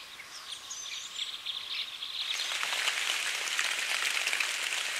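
Birds chirping and singing for the first two seconds or so. Then the steady hiss of rain falling through a forest takes over and grows louder.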